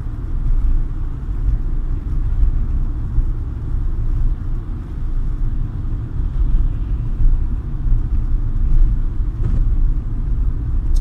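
Low, steady rumble of a car driving on a snowy road, heard from inside the cabin.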